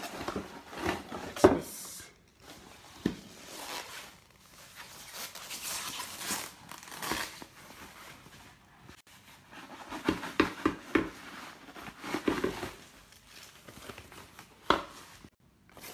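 Plastic packaging bag crinkling and rustling as a blender part is unwrapped from its cardboard box, with cardboard handling and a few sharp knocks, the loudest about a second and a half in and near the end.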